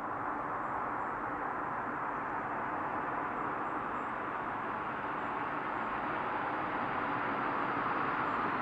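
A full-size van approaching along a two-lane road, heard as a steady hiss of tyres and road noise that grows slightly louder as it nears.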